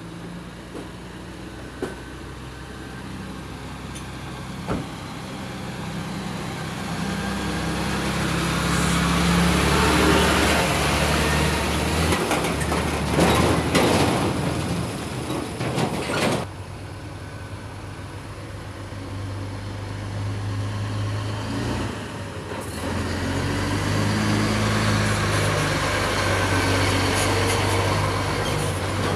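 Heavy trucks driving past close by in turn: diesel engines running and big tyres rolling. The sound swells to a peak about halfway, drops off, then builds again near the end as a flatbed semi-trailer goes by.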